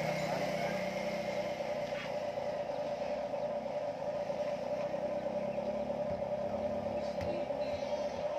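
Toy excavator running with a steady whir and a low hum underneath; a few light clicks near the end.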